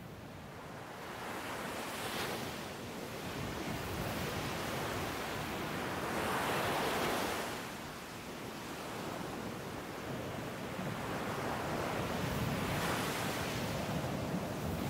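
Ocean surf with wind: waves breaking, swelling and easing three times.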